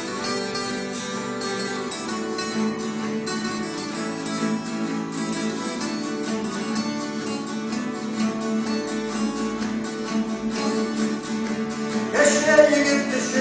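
Two acoustic guitars strummed together in a steady rhythm. A man's singing voice comes in near the end.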